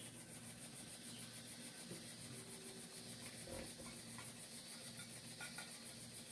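Quiet room tone: a steady low hum and hiss, with a few faint soft sounds, the clearest about three and a half seconds in.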